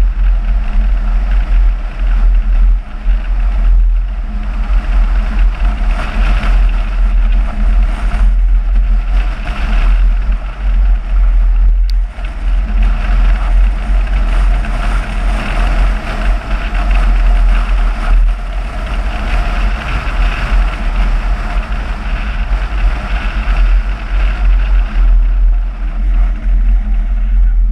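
A car driving along at a steady pace: engine and road noise with a heavy low rumble underneath, with no clear changes in speed.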